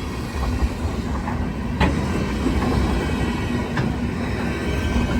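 Freight train cars rolling past, a steady low rumble of wheels on rail with two sharp clacks about two seconds apart as wheels cross a rail joint.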